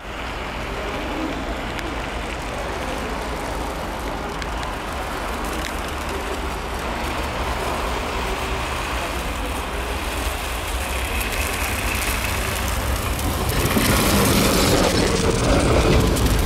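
KTM (Ust-Katav) tram approaching over snowy track and passing close by. Its rumble and wheel noise grow steadily, becoming loudest about three seconds before the end as the car goes past.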